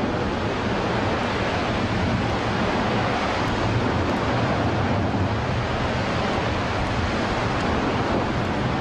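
Large fire fed by escaping natural gas burning with a steady rushing noise, with no breaks or bangs.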